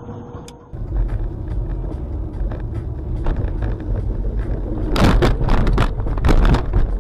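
A moving car heard through a dashcam: a steady low rumble of engine and road noise starts suddenly about a second in, with scattered knocks, and louder bursts of noise come about five seconds in.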